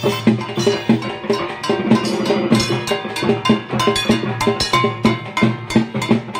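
Kansar, flat bell-metal gongs, struck with sticks in a quick, steady beat, with drumming underneath, as a procession plays while walking.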